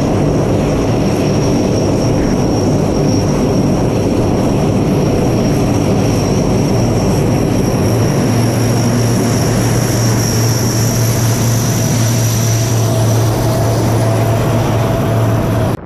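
Four turboprop engines of a C-130 Hercules running as it taxis close past, a loud steady drone with a high whine over it. The low propeller hum grows stronger about halfway through as the aircraft comes nearest.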